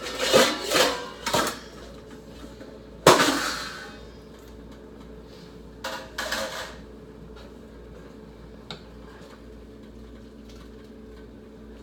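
Metal cookware clattering as a strainer is got out: a few quick knocks, then one loud clank that rings for nearly a second, and two lighter knocks a few seconds later.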